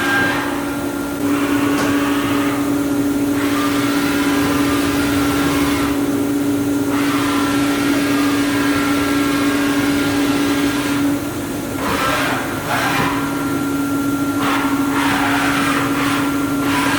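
AVEA BM 1600 vertical machining center running under power: a steady machine hum with a hiss over it that cuts out briefly several times.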